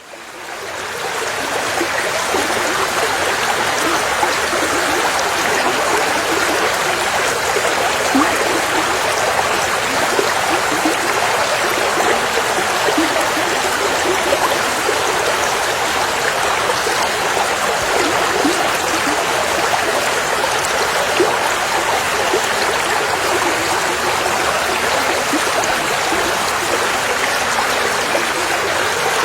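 River water flowing steadily over stones, a continuous rushing and burbling with small gurgles. It fades in over the first second or two, then holds steady.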